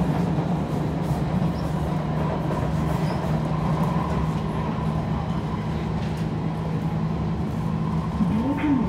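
Kawasaki C151 metro train running, heard from on board: a steady rumble of wheels on rails with an even motor hum. A voice starts near the end.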